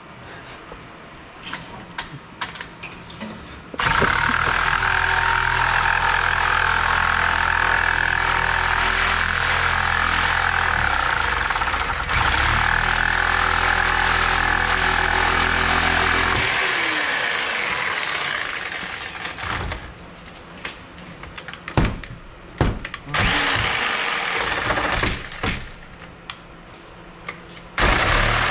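A machine's motor starts abruptly and runs steadily for about twelve seconds. Its pitch sags once midway and picks back up, then it winds down. Scattered knocks and clatter follow.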